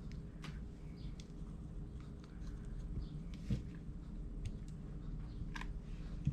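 Faint scattered ticks and light rustling of dried reindeer moss being handled and pressed onto a birdhouse roof.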